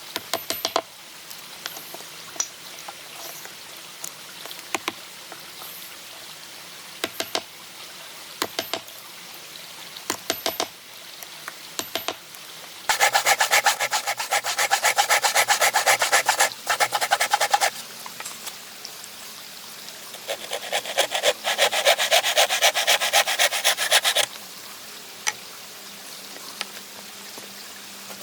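A hand tool cutting wood in quick, rapid strokes, in two bouts of about five and four seconds. Before them come scattered light clicks and taps.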